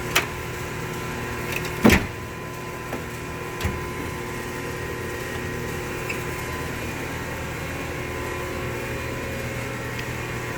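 A few sharp metal clunks in the first four seconds, the loudest about two seconds in, over a steady droning hum of workplace machinery with several steady tones in it.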